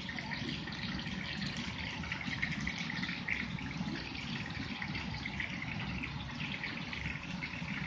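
Batter-coated pork strips deep-frying in a wok of hot oil, a steady sizzle with dense fine crackling, over the splash of a tap running into a pot on the stove and a low rumble underneath.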